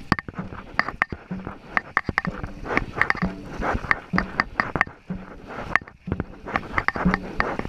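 Dragon boat crew paddling hard: wooden paddle blades splashing and knocking into the water in a steady rhythm of about one stroke a second, over the rush of water along the hull.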